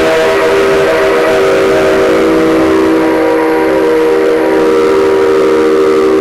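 Whistle of the C57 135 steam locomotive sounding one long, loud, steady blast.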